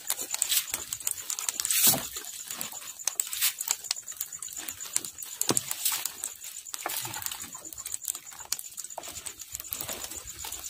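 Wet gill net being hauled by hand into a small boat, with an irregular run of splashes, drips and sharp clicks as the net scrapes over the bamboo rail.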